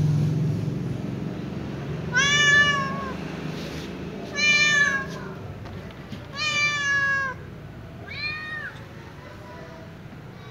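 A kitten meowing four times, a few seconds apart. Each is a short, high mew of under a second.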